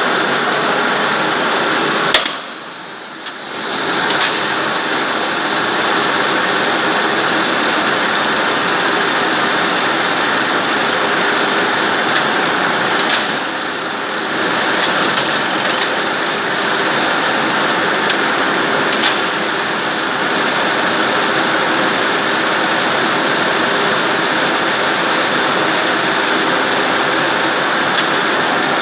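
1И140 automatic lathe running while machining a part, a loud steady mechanical din with a faint high whine. About two seconds in a sharp click is followed by a brief drop in the noise for about a second.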